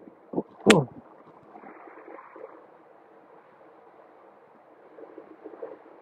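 Steady muffled wind noise buffeting the microphone of a rider moving along on an electric unicycle, with no motor whine standing out.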